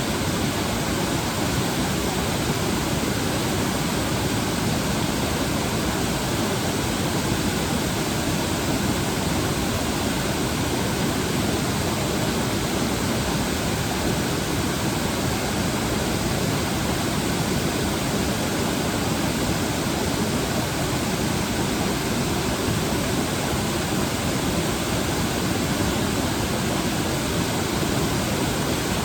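Waterfall rushing steadily, an even unbroken noise of fast-flowing water.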